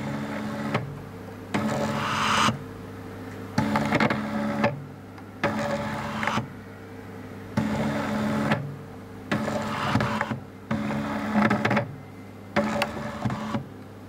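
Stepper motor and belt drive of a DIY ventilator running in bursts of about a second, with about a second between them, about seven runs, each a steady whine. The carriage pushes its paddles into a bag-valve-mask resuscitator bag and pulls them back, squeezing it at a set breathing rate.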